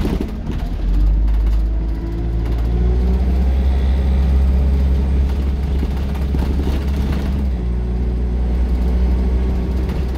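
Transbus Dart SLF single-deck bus's rear-mounted diesel engine running under way, heard from inside the passenger saloon near the back. A steady low drone whose pitch shifts a couple of times, about two seconds in and again near eight seconds, as the bus pulls along.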